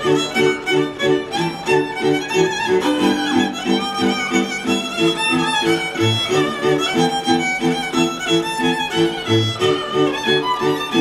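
Goral folk dance music from a fiddle-led string band. A lively violin melody runs over steady bowed chords that pulse about three times a second, with a low bass note every few seconds.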